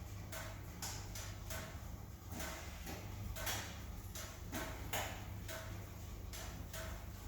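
Wood fire crackling in a fireplace, with irregular snaps and pops.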